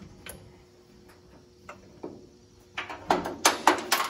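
Sharp clicks and clinks of hand tools and metal parts, with a few scattered ones and then a quick, louder run of them in the last second or so.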